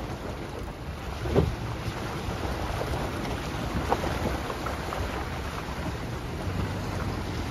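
A vehicle driving slowly along a rough, wet gravel forest road, with a steady low rumble of engine and tyres and wind buffeting the microphone. There is a louder bump about a second and a half in and another near four seconds.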